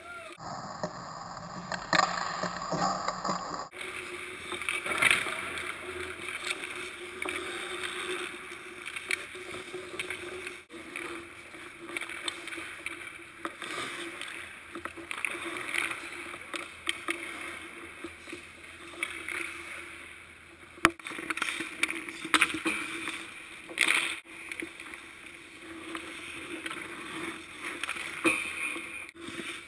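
Hockey skate blades scraping and carving across the ice, with several sharp cracks of sticks shooting pucks and pucks striking hard surfaces.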